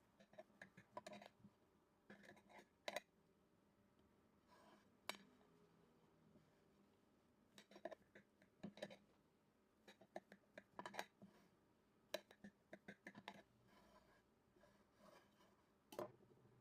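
Light clinks and taps of kitchen dishes and utensils, coming in scattered clusters with short pauses between them.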